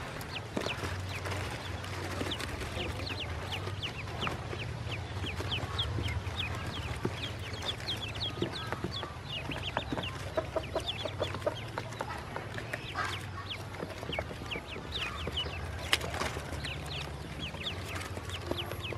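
A box of newly hatched ducklings peeping nonstop, many short, high, falling peeps overlapping. A steady low hum runs underneath, and there are a few sharp knocks, the loudest near the end.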